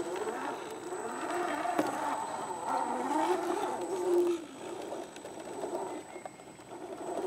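Axial SCX10 II scale RC rock crawler's electric motor and drivetrain whining, the pitch rising and falling with the throttle as the truck crawls up over rocks. The whine eases a little after four seconds in and picks up again near the end.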